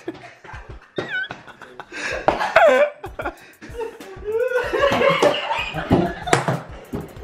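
Several men laughing together in bursts, with a few sliding, high-pitched laughs.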